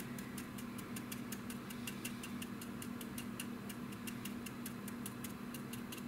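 Stiff brush stippling against a plastic model's surface: a quick, even run of light ticks, about six a second, over a steady low hum.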